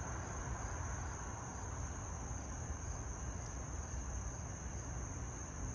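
Steady high-pitched insect chorus, like crickets, over a low, even background rumble.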